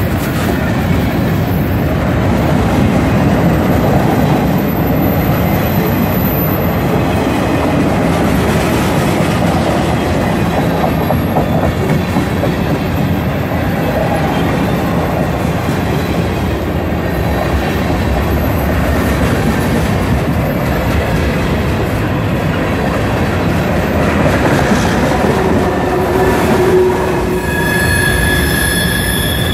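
Freight cars of a passing train rolling by at speed, a loud steady noise of steel wheels on rails. Near the end, the wheels begin squealing in high, steady tones.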